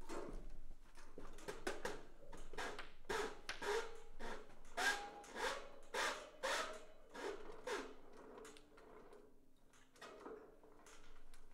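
A man grunting and straining in short, quick vocal efforts while jumping for and hauling down a pull-down projector screen by its cord. The efforts thin out about eight seconds in and pick up again briefly near the end.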